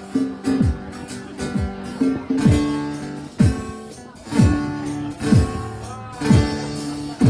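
Live song in an instrumental stretch: strummed acoustic guitar over held backing notes and a deep beat that falls in pitch about once a second.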